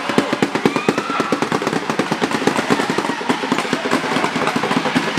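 A fast, irregular run of sharp cracks and pops, about ten or more a second, that goes on without a break.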